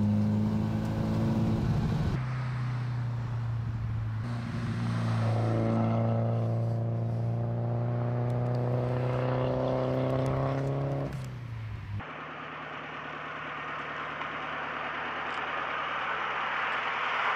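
BMW 2002 tii's four-cylinder engine with Kugelfischer mechanical fuel injection, running under load with its pitch climbing slowly as it pulls. About two thirds of the way in, the sound changes to a rougher, hissier engine and exhaust note.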